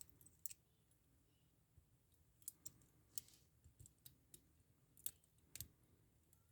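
Faint, irregular small clicks and taps of metal lock picks being handled against handcuffs, as picking of the cuffs begins.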